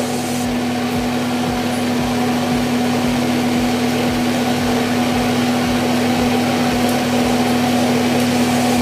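Induction cooktop running: its cooling fan gives a steady whirring hum with a constant low tone.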